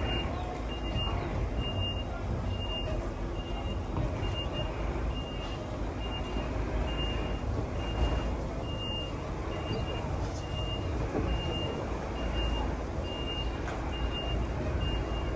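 Vehicle warning beeper on a heavy-haulage truck and rail trailer, sounding one steady high beep a little more often than once a second, over the low rumble of the truck's diesel engine as it moves slowly.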